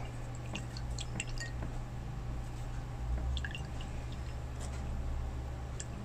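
Faint small clicks and light taps of craft materials being handled while painting, over a steady low hum.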